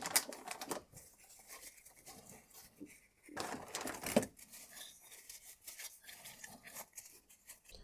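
A plastic zip-lock bag crinkling and a paper towel rustling as they are handled, in short irregular bursts, loudest right at the start and again about three and a half seconds in.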